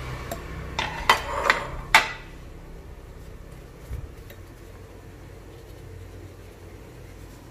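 Clinks and clatters of a steel spoon and dishes knocking together, several sharp ones in the first two seconds, then a single softer knock about four seconds in.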